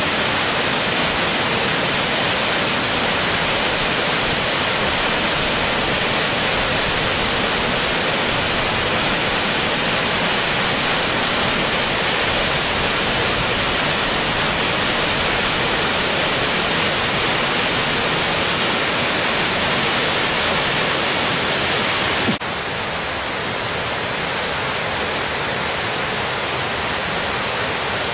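Waterfall rushing down a rocky gorge, a steady loud rush of falling water. About three quarters of the way through it cuts abruptly, with a click, to a slightly quieter and duller rush of the cascade further down.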